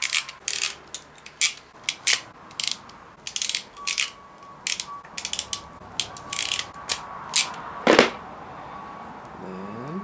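Quick, irregular clicks and rattles of plastic wiring connectors and wires being handled and pushed together, with one louder click about eight seconds in.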